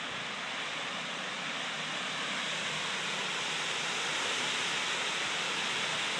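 Storm-force wind rushing through trees, a steady rush that grows a little louder toward the end.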